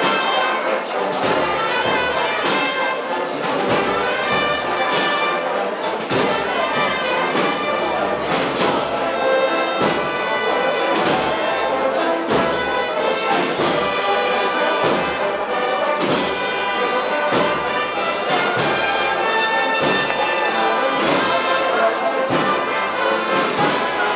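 Brass band playing a slow processional march, with sustained brass chords over a steady drum beat.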